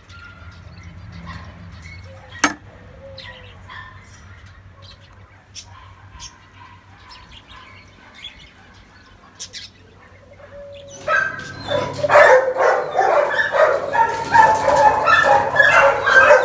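Faint chirps and scattered clicks, with one sharp click about two and a half seconds in. Then, about eleven seconds in, many kennel dogs start barking loudly at once in a dense, continuous din.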